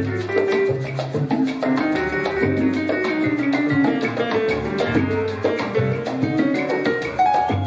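Live salsa band playing: a repeating bass line under melodic lines, with a steady beat of percussion.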